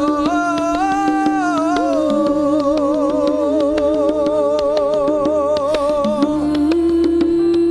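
Live worship music: voices holding long, wavering notes over a steady low sustained note that steps up in pitch near the end.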